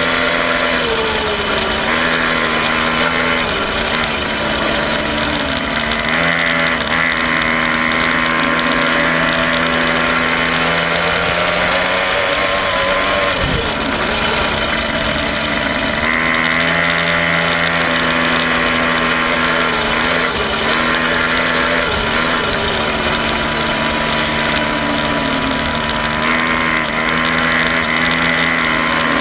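Quad bike engine running close by, its note rising and falling several times as the bike speeds up and slows.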